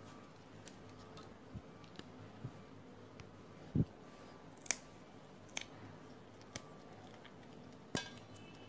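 Sparse small clicks and taps of fingers handling the rubber anode cap against the glass of a CRT picture tube, with a dull thump nearly four seconds in and a sharper click just under a second later.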